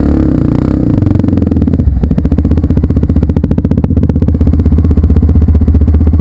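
Motorcycle engine running close by, loud and steady, settling into a fast, even pulsing beat about two seconds in.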